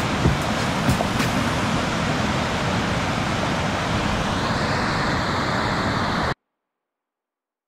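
Whitewater of a river rapid rushing steadily, with a few sharp clicks in the first second or so. The sound cuts off suddenly about six seconds in.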